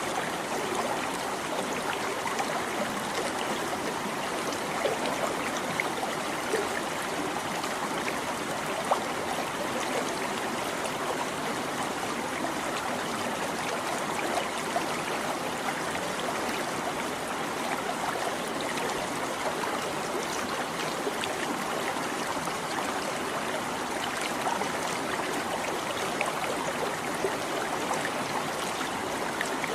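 Small stream babbling and trickling steadily, an even rush of running water with little splashes.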